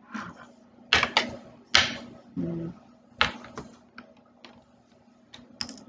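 Irregular clicks and knocks of a USB cable and a small plastic portable hard drive being picked up, handled and set down on a table.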